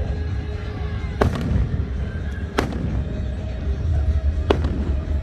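Aerial fireworks bursting: four sharp bangs, two of them close together about a second in, then one near the middle and one near the end, over a steady low rumble.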